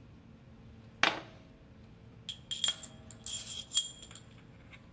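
Small metal valve parts clinking together: one sharp click about a second in, then a quick run of light ringing clinks.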